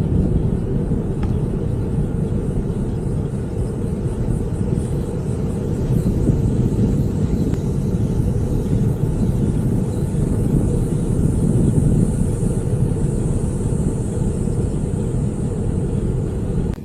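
Steady low rumble of wind buffeting the microphone while riding a bicycle at speed.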